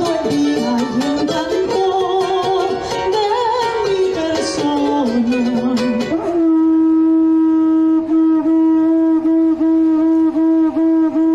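About six seconds of singing with music, then a conch-shell trumpet (pututu) blown in one long, steady, loud note, broken by short dips a few times a second over its last few seconds.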